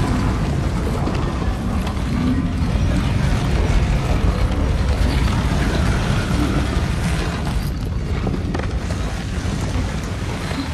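Film sound mix: a deep, continuous rumble of a heavy stone grinding over rock as it rolls, under film score music.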